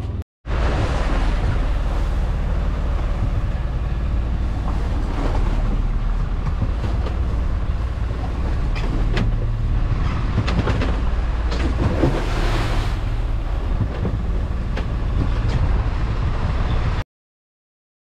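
Fishing boat's engine running under a steady rush of strong wind and waves breaking against the hull in rough seas, with scattered knocks and splashes. It cuts off suddenly about a second before the end.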